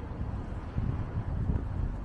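Wind buffeting the microphone as a low rumble, with a stronger gust a little under a second in.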